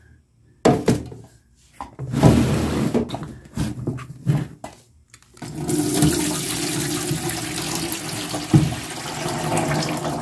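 A few scattered knocks and rattles as a car battery is lifted and tipped, then, about halfway in, a steady gush of battery acid pouring out of the cell openings of the upturned 12 V battery into a plastic tub, continuing to the end.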